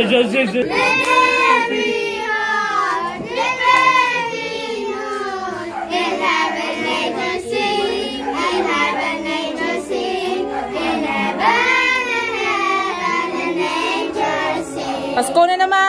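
A group of children singing a Christmas carol together.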